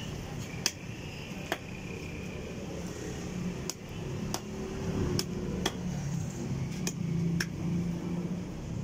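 Long knife scraping the scales off a whole fish on a wooden block, each stroke giving a sharp click, one every second or so at uneven intervals, over a low steady rumble.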